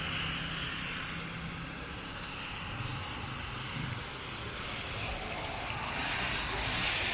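Street traffic: a motor vehicle's engine running close by over a steady low rumble, growing louder over the last couple of seconds.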